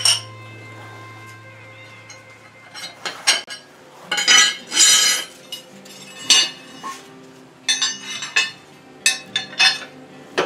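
Steel mower blades and hand tools clinking against each other and the concrete floor while the blades are taken off a Scag Tiger Cat mower deck. A string of irregular sharp metallic clinks, with a longer scrape about four to five seconds in.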